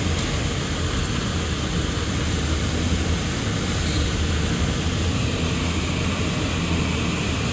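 Steady drive-by noise heard from inside a moving car: low engine and tyre rumble with a constant hiss on top.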